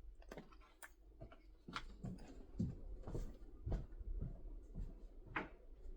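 Faint footsteps and household knocks in a small quiet room: irregular soft thumps and clicks, about two a second through the middle.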